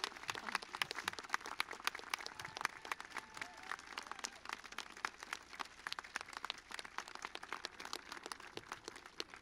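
Crowd applause: many people clapping at once as a dense patter of hand claps that thins out and fades near the end.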